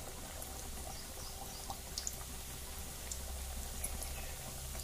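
Chiroti, rolled layered dough rounds, deep-frying in a kadai of hot oil: a steady sizzling bubble with scattered small crackles.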